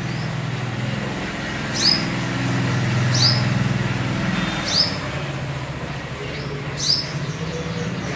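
A small bird giving four sharp, high chirps that drop in pitch, spaced about one and a half to two seconds apart, over a low steady hum.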